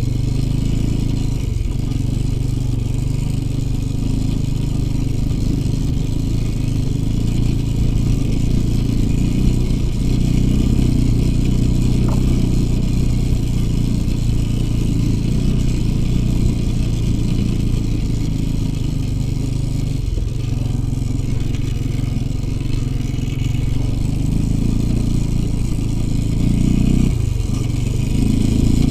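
IZh Jupiter 5 two-stroke twin motorcycle engine running under way. Its note holds steady and loud, dipping briefly about four times.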